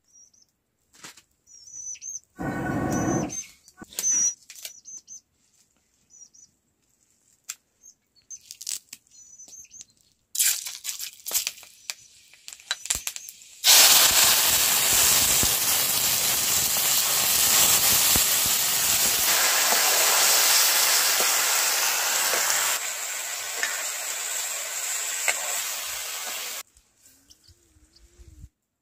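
A hot wok sizzling hard with steam, setting in suddenly about halfway through and stopping abruptly near the end. Before it, faint bird chirps and light scattered taps.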